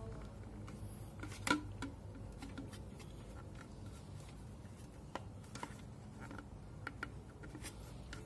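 Light plastic clicks and knocks as a motorcycle's plastic coolant reservoir tank is handled and fitted back into its mount, the sharpest about one and a half seconds in, over a low steady hum.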